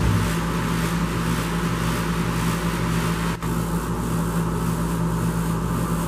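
A steady, unchanging mechanical hum with a low drone and an even hiss over it, broken by a brief dropout about three and a half seconds in.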